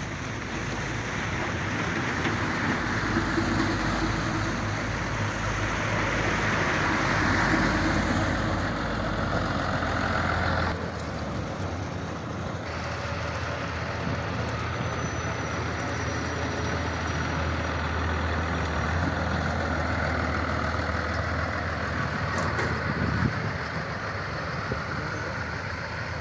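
Diesel engine of a road roller running steadily, with an abrupt change in its sound about eleven seconds in.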